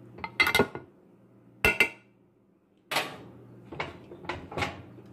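Metal kitchen tongs clinking and knocking against a glass baking dish as pieces of cooked pork are moved. There are a few sharp clinks, the loudest about half a second in and again near two seconds, then a run of lighter knocks.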